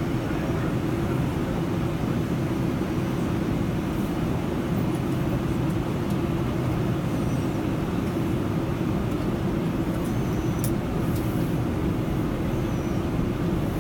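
Steady drone of a Boeing airliner, its noise heavy in the low range and holding an even level throughout.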